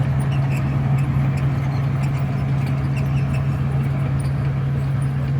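Heavy diesel engine of earthmoving machinery running steadily at a constant speed, with a faint high ticking repeating a few times a second.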